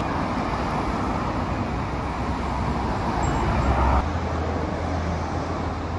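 City street traffic: road vehicles running past as a steady noise, with a low engine hum growing stronger a little past halfway.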